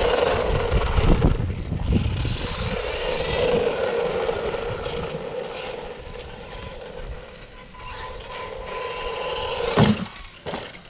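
Small brushed electric motor of a 1/10-scale 2WD RC car whining as the car drives, with tyre and ground noise, fading and swelling as it moves away and comes back. A sharp knock about ten seconds in.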